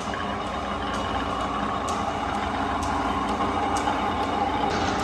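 Old camelback drill press running on its belt drive from an electric motor, with the self-feed slowly lowering the bit: a steady machine hum with a faint whine.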